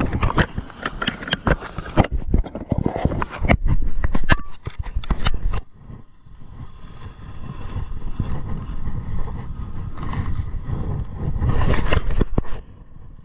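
Knocks and clatter for the first five seconds or so. Then the steady scrape of short snowblade skis sliding over groomed snow, with a low rumble of wind on the body-worn camera, growing louder again near the end.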